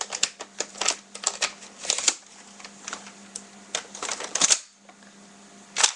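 Plastic Nerf blaster parts and attachments clicking and rattling as they are handled, in an irregular run of sharp clicks over a faint steady hum, with a short lull near the end.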